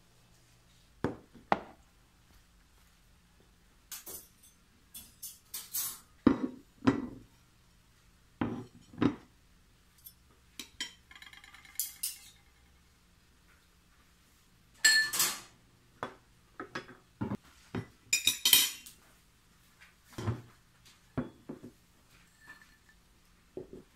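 Cutlery, plates and a drinking glass being set down on a table: a series of separate clinks and knocks at irregular intervals, a few ringing briefly.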